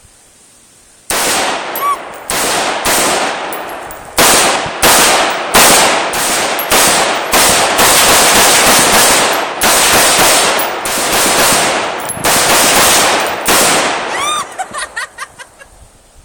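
AR-15 semi-automatic rifle fired rapidly: about two dozen sharp shots, roughly two a second, with a brief pause about halfway, each shot trailing off in a short ring. The shooting starts about a second in and stops a couple of seconds before the end.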